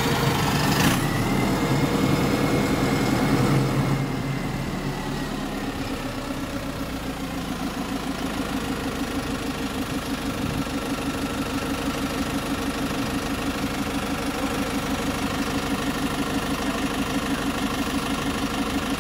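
Engine of an Alexander Dennis Enviro400H hybrid double-decker bus starting up and running. It is louder for the first four seconds or so, with a sharp click about a second in and a high whine that slowly falls away, then settles into a steady idle.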